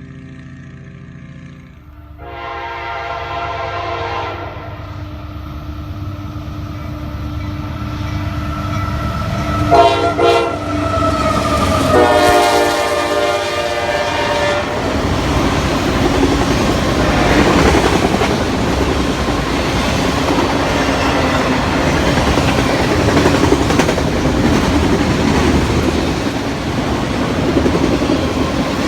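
Diesel locomotive horn sounding a long blast, a short one and another long one, then the train rolling past with wheels clicking over rail joints and cars rattling.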